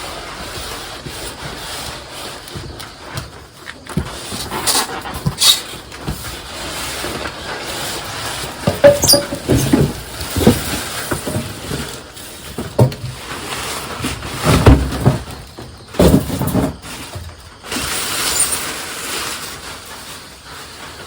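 Irregular knocks and clatter of things being handled, with a brief high squeak about nine seconds in.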